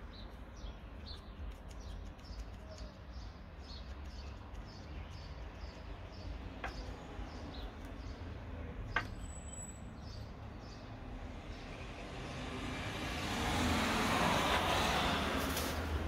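Steady low background rumble with a small bird chirping about twice a second and two sharp clicks. Near the end a broad hiss swells up and becomes the loudest sound.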